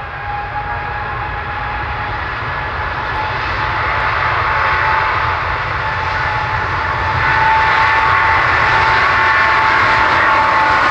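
Airliner's engines, a steady whine over a rushing noise, getting steadily louder as the aircraft approaches.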